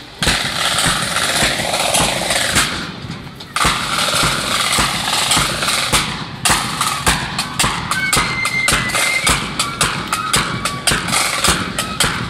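Marching flute band: drums beat a steady march rhythm, and the flutes come in with a tune about two-thirds of the way through. A loud rushing noise fills the first few seconds.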